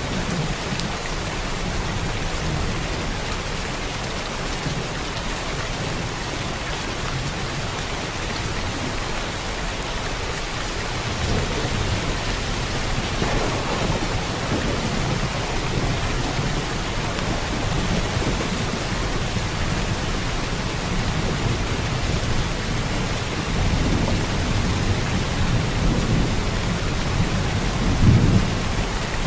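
Steady heavy rain, with low thunder rumbling under it; the rumble swells twice, peaking shortly before the end.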